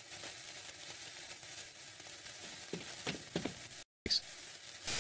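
Lit fuse of a cartoon bomb hissing steadily, with a few faint crackles about three seconds in. The hiss drops out for a moment just before four seconds, then comes back louder at the very end.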